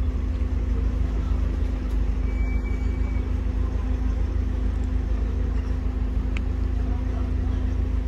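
Tofaş Doğan SLX's four-cylinder engine idling steadily, heard from inside the cabin. A short high beep sounds about two and a half seconds in.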